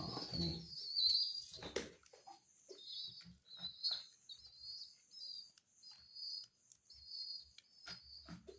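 Young pigeon squabs begging with a run of short, high-pitched squeaky cheeps, one after another, mixed with faint clicks and knocks.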